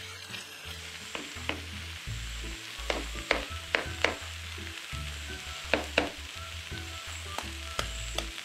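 Diced potato, tomato, pepper and onion sizzling in a nonstick frying pan while a spatula stirs and pushes them around, with about ten sharp scrapes and taps of the spatula against the pan.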